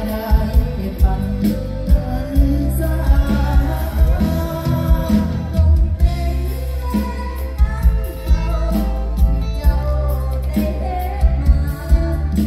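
Live mor lam band music played loud through the stage PA: women singing over a heavy, steady drum beat.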